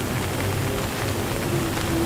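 Steady rain falling, with soft background music holding a long low note.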